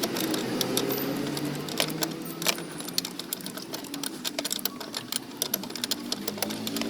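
Rapid, irregular mechanical clicking and ticking over a steady low hum.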